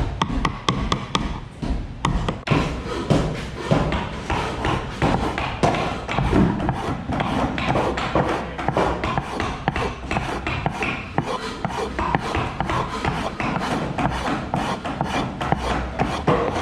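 Hand tools working wood: steady rubbing and rasping with many small, irregular taps and clicks.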